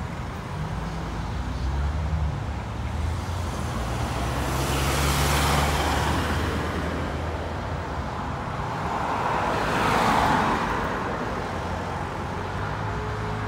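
Road traffic at a junction: a low engine drone in the first half, and two cars passing close, their tyre noise swelling and fading about five and ten seconds in.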